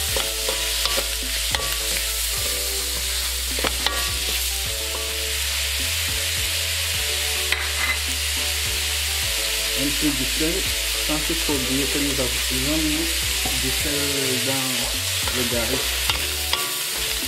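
Chopped vegetables sizzling in oil in a non-stick wok while a wooden spatula stirs and scrapes them, with a few sharp taps of the spatula against the pan.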